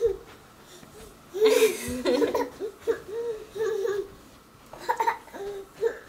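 A toddler laughing and babbling: a loud laugh about a second and a half in, then a string of short high-pitched vocal sounds.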